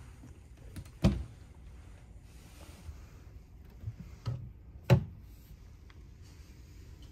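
Wooden cabinet door pulled open by its metal handle, with a sharp knock about a second in. Then a small minibar fridge door is pulled open: a couple of soft clicks, then a loud knock just before five seconds in.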